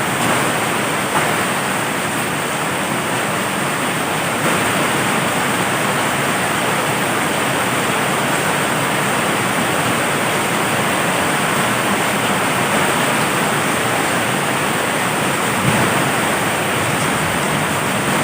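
Heavy rain falling in a steady downpour, an even hiss without breaks.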